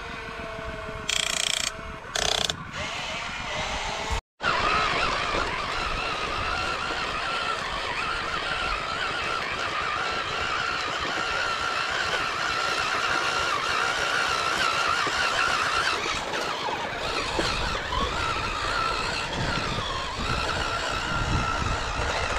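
Small electric motor and gearbox of a radio-controlled construction model whining steadily, the pitch wavering slightly. Before a brief cut about four seconds in, there are a few short mechanical rattles.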